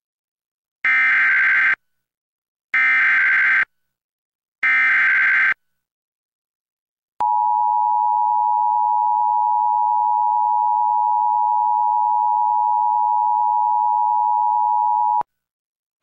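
Emergency Alert System SAME header: three short bursts of buzzing data tones about two seconds apart. They are followed by the two-tone EAS attention signal, held steady for about eight seconds and then cut off. Together they announce a severe thunderstorm warning.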